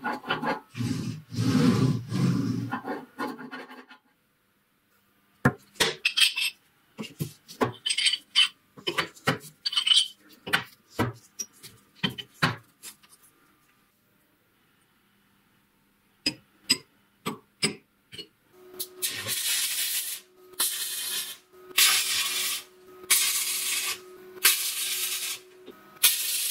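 Ball-bearing spindle shaft spun by hand, rumbling for a few seconds. Then a series of sharp ticks and scrapes of a steel scriber marking out a steel plate. Last, a hand-held power tool running with a steady hum, its grinding noise swelling in strokes about once a second as it works a clamped steel plate.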